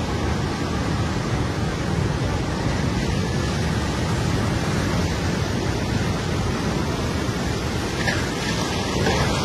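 Tsunami surge of seawater breaking over a low seawall and pouring across a flooded road: a steady rush of water that holds at one level throughout.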